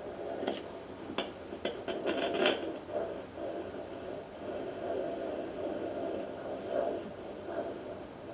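A Facelake fetal Doppler's loudspeaker giving a steady whooshing hiss as it picks up sound through the probe on the belly. In the first couple of seconds there are several sharp scraping clicks as the probe is moved over the gel.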